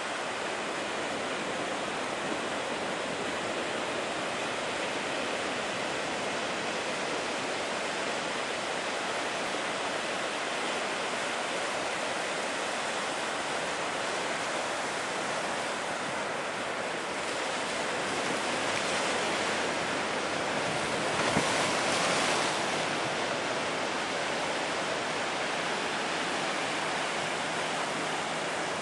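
High surf breaking: a steady wash of wave noise that grows louder for a few seconds about two-thirds of the way through.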